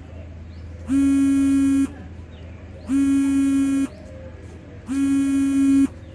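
Electronic buzzer sounding in a steady on-off pattern: a pitched buzz of about a second, repeating every two seconds, three times.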